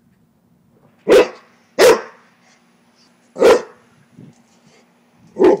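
A Rottweiler barking four short, loud barks at uneven intervals, at a frog hidden by the wall.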